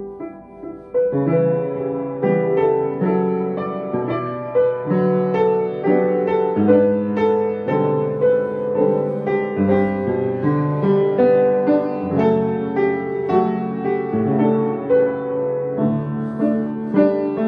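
Solo piano playing a slow, gentle piece, its notes struck one after another and left to ring, the sound filling out about a second in.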